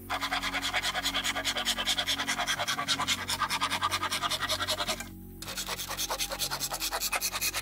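Rapid rhythmic scraping, about six strokes a second, stopping for a moment about five seconds in and then going on, typical of a hand tool rasping on wood; soft background music underneath.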